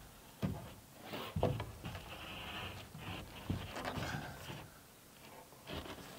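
A long lumber board being shifted and pressed against the wooden roof edge, with scraping and several light knocks of wood on wood.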